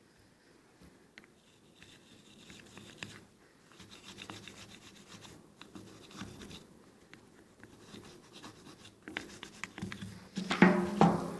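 Brass wire brush scrubbing baked-on carbon off a throttle body and its butterfly, in short intermittent scraping strokes. There is a louder burst of scraping and knocks near the end.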